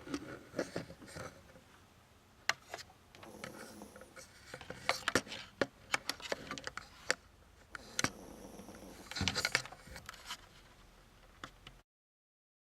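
Elderly Yorkshire terrier snoring in its sleep, two long wheezy breaths about five seconds apart, among scattered scraping and clicking noises. The sound cuts out abruptly shortly before the end.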